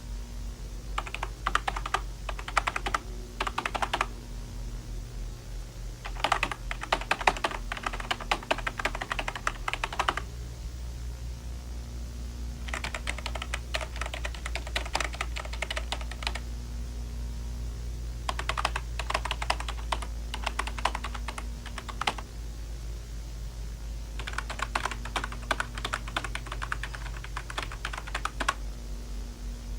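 Computer keyboard typing in bursts of about three to four seconds with short pauses between them, over a steady low hum.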